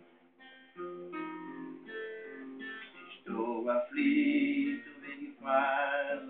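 A man singing to acoustic guitar: picked guitar notes for the first three seconds or so, then his voice comes in over the guitar, with a wavering held note near the end.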